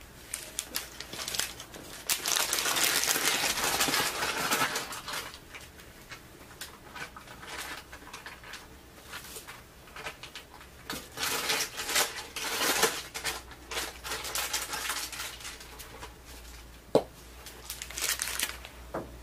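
Plastic piping bag crinkling and rustling as it is handled, in irregular bursts: a long loud stretch a few seconds in, more around the middle and again near the end, with one sharp click shortly before the end.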